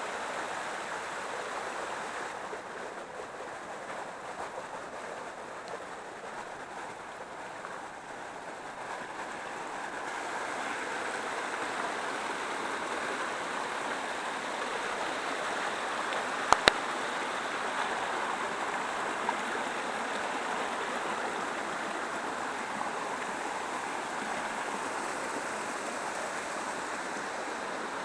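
A small waterfall spills over rocks into a stream, making a steady rush of running water that grows a little louder about a third of the way in. A sharp double click comes near the middle.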